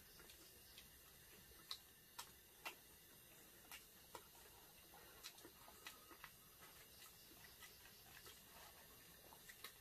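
Near silence with faint, irregular clicks and crackles of eating: two people chewing egg rolls and handling their paper wrappers.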